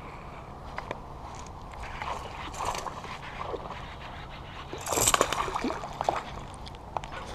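A hooked bass thrashing and splashing at the water's surface while being reeled in on a baitcasting reel: faint ticks from the reel at first, then a loud burst of splashing about five seconds in and a few smaller splashes after it.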